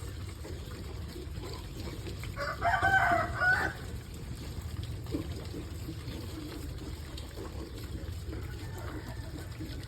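A rooster crowing once, a call of just over a second starting about two and a half seconds in, over a steady low background rumble.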